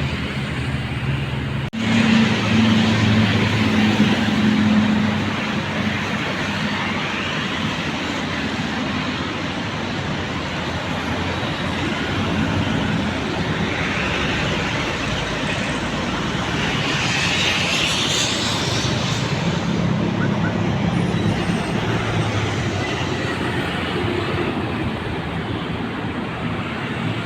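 Busy road traffic: cars and other motor vehicles passing one after another, with a steady rush of engine and tyre noise and the engines of nearer vehicles swelling as they go by.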